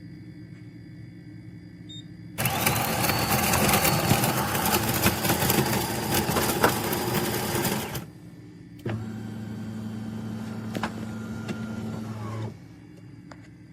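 Automatic bean-to-cup espresso machine running in two stages: a loud, dense whirring for about five and a half seconds, then, after a brief pause, a quieter steady hum for about three and a half seconds.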